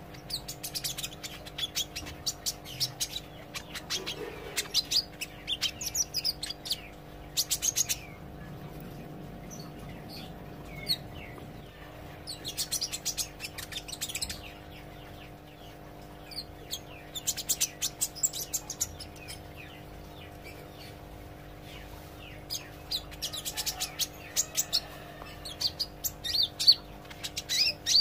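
A caged sunbird (kolibri ijo) still learning its song, singing in clusters of quick, high chirps and trills broken by short pauses. A steady low hum runs underneath.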